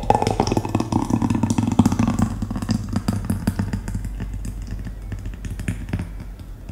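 Thick mango smoothie poured in a steady stream into a glass mug, splashing, with a tone that drops in pitch over the first couple of seconds and a steady low hum underneath. It starts and cuts off abruptly.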